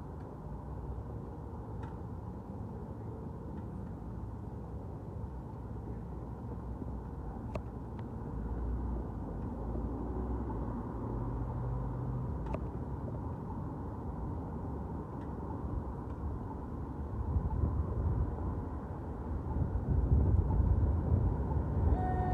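Low engine rumble of a fire engine, growing louder about halfway through and again near the end. Right at the end its siren begins to wind up.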